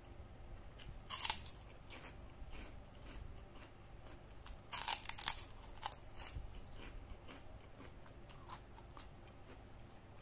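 A person chewing crunchy food close to the microphone: loud crunches about a second in and again around five seconds in, with smaller crackling mouth clicks in between.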